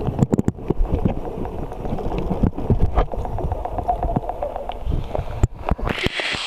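Muffled sound of a camera held under murky stream water: a low rumble full of knocks and clicks from water moving against it and from handling. About six seconds in it breaks the surface, and the steady rushing hiss of flowing stream water takes over.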